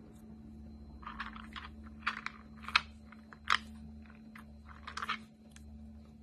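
Slime being worked by hand, giving a run of short crackling pops and clicks, the loudest two in the middle, over a steady low electrical hum.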